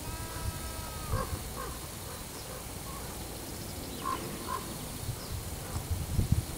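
Sheep bleating: one drawn-out bleat right at the start, then short calls in pairs, about a second in and again about four seconds in.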